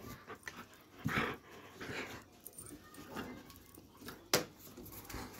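A Doberman close to the microphone making a few short noisy sounds, the strongest about a second in, with a single sharp click a little after four seconds in.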